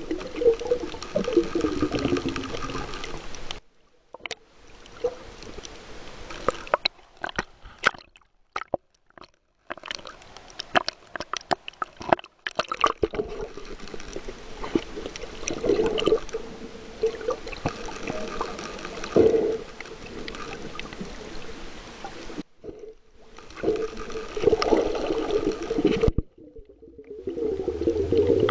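Water sounds picked up by a snorkeller's camera under water: muffled sloshing and gurgling that swells every few seconds, with scattered clicks and pops, and several brief drop-outs to near silence.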